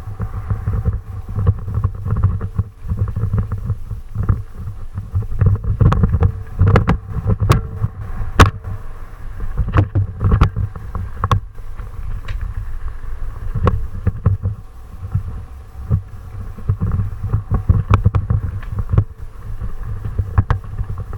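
Loud low rumble with wind buffeting the microphone and frequent irregular sharp knocks and rattles, the sound of a camera carried along fast over rough ground on a descent.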